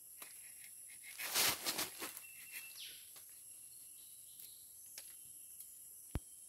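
Rubber-tapping knife shaving a thin strip of bark along the tapping cut of a rubber tree: short scraping rasps, loudest about a second and a half in, over a steady high insect drone. A single sharp click near the end.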